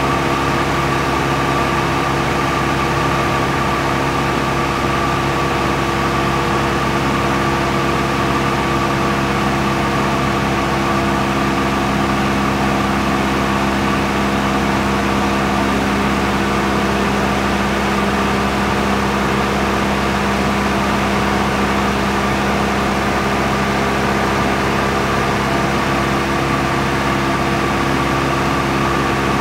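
Aircraft engine droning steadily, heard from inside the cabin: an even hum of several held pitches that does not rise or fall.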